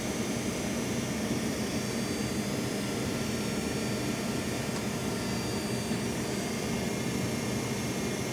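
Steady mechanical hum and hiss of machinery running, unchanging throughout.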